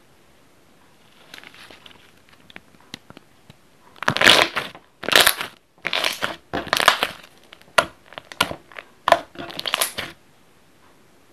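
Hand squeezing and pressing a glossy slime, making bursts of crackling and popping as air pockets in the slime burst. Faint at first, then about six loud squeezes with sharp pops from about four seconds in, stopping near ten seconds.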